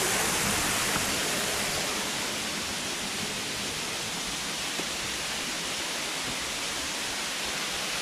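Water rushing over the small rock cascades of a jungle waterfall, a steady hiss that eases a little over the first few seconds.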